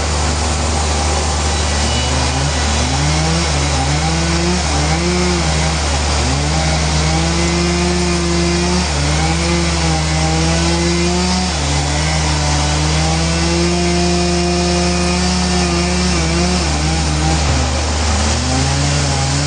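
Sawmill saw cutting through a Trembesi (rain tree) hardwood log, running steadily with its pitch repeatedly sagging and recovering as the cut loads the machine.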